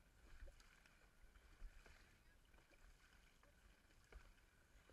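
Faint dragon boat paddle strokes: paddles dipping and pulling through the water, with light splashes about once a second, barely above near silence.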